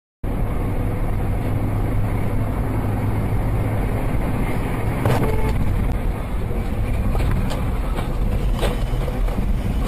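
Steady rumble of a moving car, engine and road noise as picked up by a dash camera, starting suddenly and broken by a few brief knocks about halfway through and near the end.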